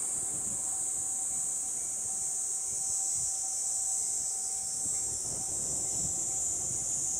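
A steady, high-pitched drone of cicadas, with the low rumble of an approaching train on the rails building over the last couple of seconds.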